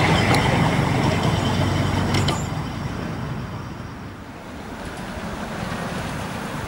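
Miniature railway train rumbling along the track and fading as it moves away, with a couple of sharp clicks in the first few seconds.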